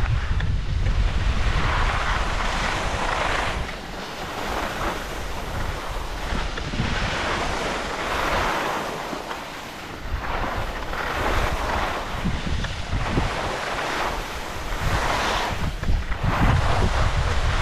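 Skis scraping and carving on packed snow through a series of turns, a hiss that swells with each turn every two to three seconds, over low wind rumble on the microphone.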